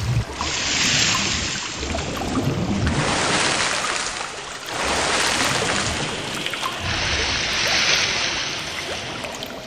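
Water splashing and churning around swimmers in a cave pool, partly heard with the microphone under the water; the sound changes abruptly several times.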